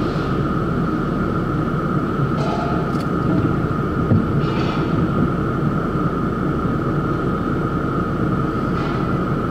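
Car wash machinery running with a steady low drone and a constant whine, heard from inside a car, with three short hisses of spray or air.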